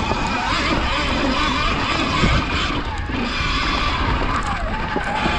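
Sur-Ron X electric dirt bike ridden at speed over a rough dirt trail: a steady rush of wind and deep rumble on the helmet microphone over the noise of the bike on the bumpy ground, with a faint motor whine.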